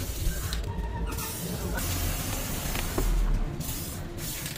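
Aerosol can of cavity wax spraying through its extension straw: a steady hiss in three bursts, cut off briefly about half a second in and again near the end, over a low rumble.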